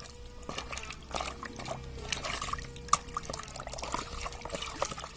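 Water trickling and splashing as a toy truck is washed by hand, with many small clicks and knocks, one sharper knock near the middle.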